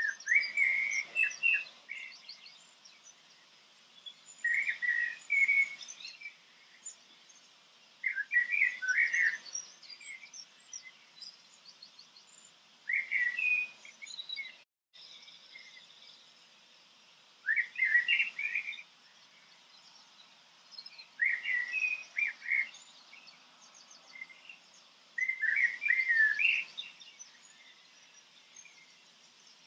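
A songbird singing short phrases of quick chirps, one phrase about every four seconds.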